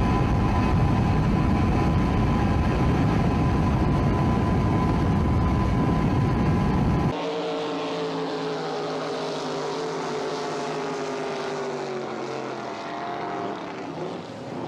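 Motorboat engines on open water. Loud rushing wind and water noise with a steady motor whine, then racing powerboat engines running hard, their pitch slowly falling.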